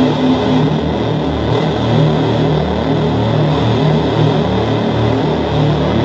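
Harsh noise music: a loud, unbroken wall of distorted noise with low tones throbbing unevenly beneath it.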